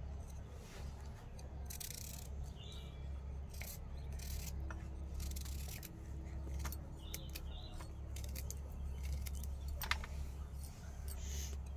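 A knife cutting ivy gourds (kundru) held in the hand over a steel plate: scattered light clicks and snips as the blade goes through, over a steady low hum.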